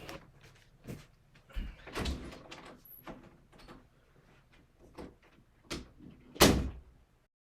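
A series of scattered household knocks and thuds, like doors and cupboards being opened and shut while packing belongings. The loudest is a heavy thud about six and a half seconds in.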